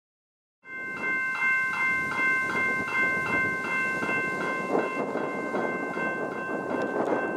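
General Signals Type 2 electronic level-crossing bell ringing, starting about half a second in: a rapid run of ringing strokes, about three a second, over a steady background hiss. It is the warning of an approaching train as the crossing activates and the lights flash before the booms come down.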